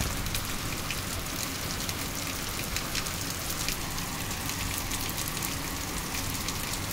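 Heavy rain falling steadily in a downpour, with many separate drop hits ticking close by over the even rush of the rain.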